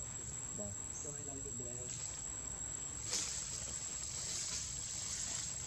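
A steady, high, thin insect drone, with faint voices in the background during the first two seconds and a brief sharp rustle or click about three seconds in.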